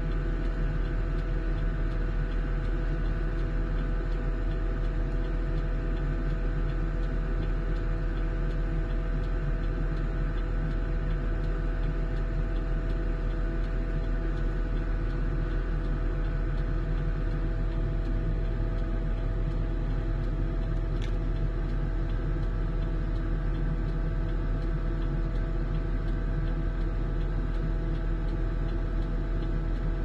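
Rotary snowplow truck's engine and snow blower running steadily as it clears deep snow, an even low drone that does not change.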